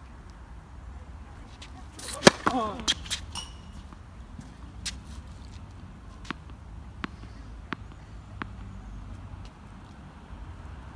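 A tennis serve: the racket strikes the ball with a sharp crack about two seconds in, the server lets out a short grunt, and a few quick clicks follow as the ball lands. Later come single soft ticks about 0.7 s apart, a ball being bounced at the baseline before the next serve.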